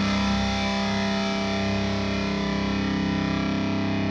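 Electric guitar played through the This Heavy Earth Black Mass preamp pedal, with heavy distortion: one chord held and left ringing, with a slight wavering in level.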